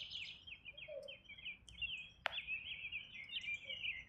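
Birds chirping continuously in quick, varied calls, with one sharp click about two seconds in.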